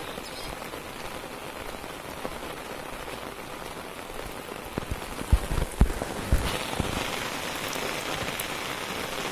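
Steady rain falling as an even hiss, growing louder and brighter about six seconds in. A few dull low bumps come just past the middle.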